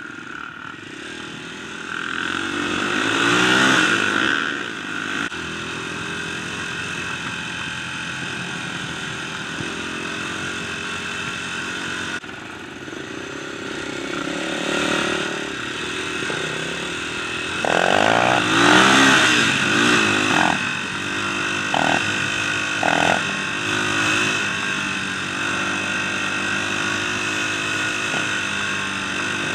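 Dirt bike engine running on the road, revving up twice as it accelerates, about two to four seconds in and again around the middle, with wind rushing past.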